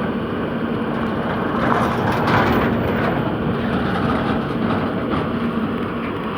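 Hydraulic excavator's diesel engine running steadily, with a constant low hum and a few faint knocks.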